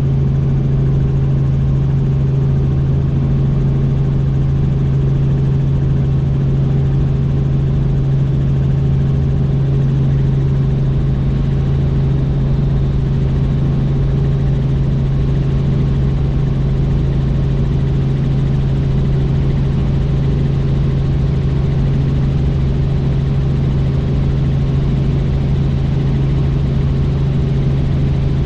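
Helicopter in flight: a loud, unchanging drone of rotor and engine with a strong, steady deep hum.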